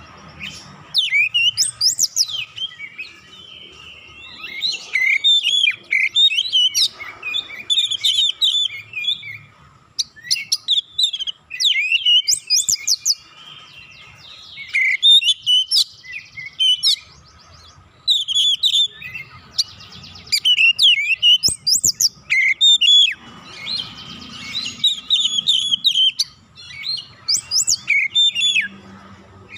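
Oriental magpie-robin singing: a rapid, varied song of sweeping whistles and chirps, delivered in bursts of a second or two with short pauses between them.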